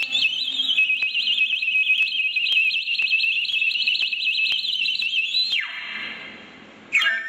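A transverse Chinese wind instrument played high and piercing, holding one note with rapid warbling trills above it. About five and a half seconds in the note slides down and fades, and a lower phrase starts just before the end.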